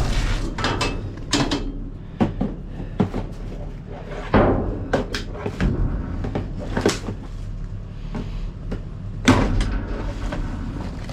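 Irregular knocks, clunks and rattles of trash being shifted around in a dumpster with a hook, with heavier bangs at the start, about four seconds in and about nine seconds in.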